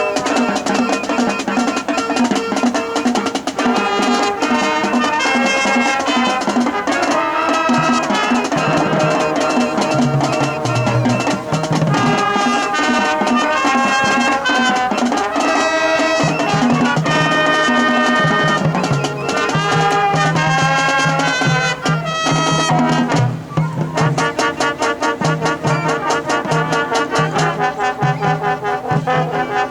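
High school marching band playing, with trumpets and trombones carrying the tune over drums and a repeated low brass bass line. About three-quarters of the way through, the music changes to short, punched chords in a tight rhythm.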